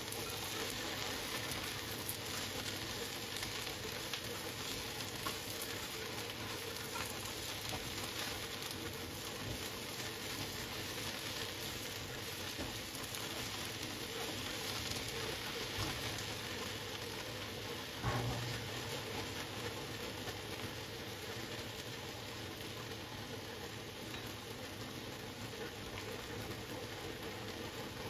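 Food sizzling as it fries in a pan, with light clicks throughout and a single knock about eighteen seconds in.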